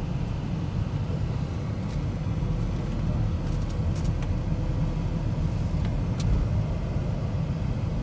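Steady low rumble of a moving car, with a few faint ticks about halfway through.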